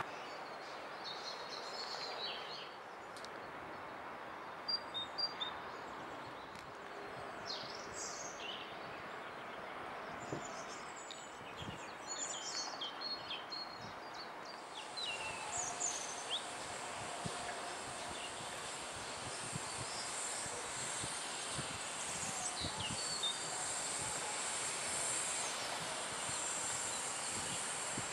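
Outdoor background noise with birds chirping now and then. A steady high hiss comes in about halfway through, and the overall level slowly rises.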